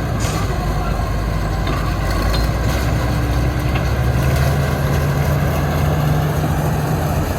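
Heavy diesel construction machinery running steadily, a low engine drone that grows a little stronger past the middle, with a few faint clicks early on.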